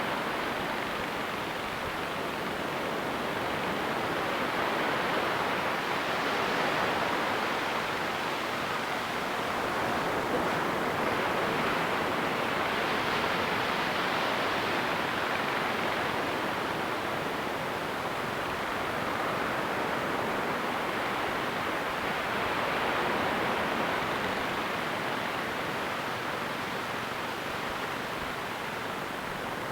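Ocean waves washing onto a beach, a steady surf hiss that swells gently every few seconds.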